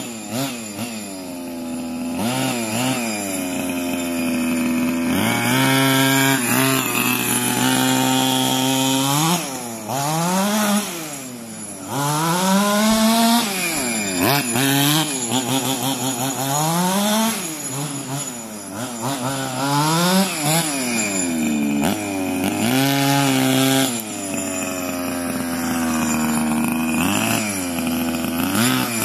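Carson Gas Devil RC buggy's two-stroke petrol engine revving up and down over and over as it is driven, its pitch rising and falling with the throttle, with a few short steady stretches in between.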